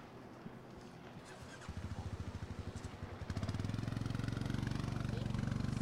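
A motor engine close by starts running about a second and a half in, with a low rapid pulsing. About three seconds in it becomes louder and steady.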